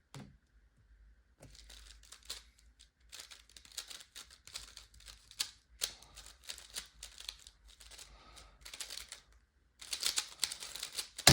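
A 3x3 Rubik's Cube being turned fast in a speedsolve: a rapid, irregular run of light plastic clicks and rattles begins about a second in and lasts close to ten seconds, getting louder near the end. It ends in a sharp tap as the solve finishes and the timer is stopped.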